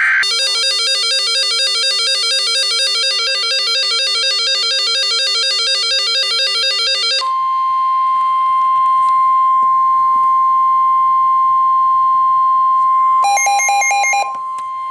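Electronic alert beeps in a fast, even repeating pattern for about seven seconds, then a single steady high tone, the weather radio's 1050 Hz warning alarm tone that announces a new warning. A short burst of beeps breaks in over the tone near the end.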